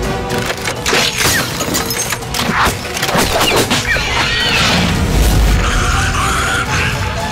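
Action-film fight soundtrack: dramatic music under a rapid string of hits, booms, and wood smashing and splintering.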